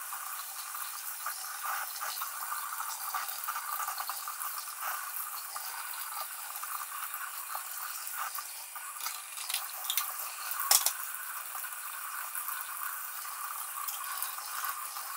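Kitchen tap running into a stainless steel sink as plastic and metal shredder parts are scrubbed with a sponge under the stream, with light clatter throughout and one sharper knock a little past two-thirds of the way through.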